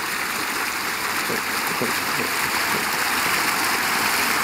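Rushing stream water: a steady hiss of flowing, churning water with faint gurgles, growing slightly louder.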